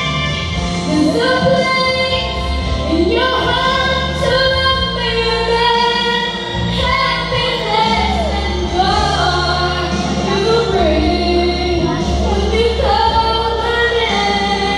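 A female singer singing a slow song into a handheld microphone, with held notes and pitch glides, over steady instrumental accompaniment.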